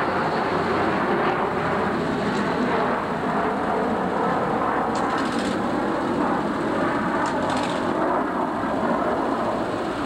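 A vehicle engine running steadily, with faint clicks a couple of times about halfway through.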